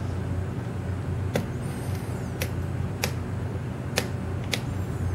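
Faint, sharp clicks, about five of them spaced a second or so apart, from a lock pick working the pin tumblers of a Dexter lock cylinder under tension: pin five clicking as it is set and the lock comes close to opening. A steady low hum runs underneath.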